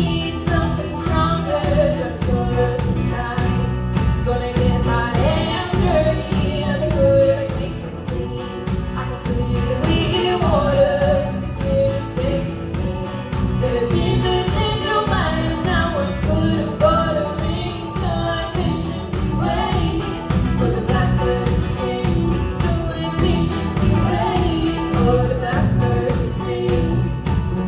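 Music from a performance of a song, a melody line wandering over a steady beat.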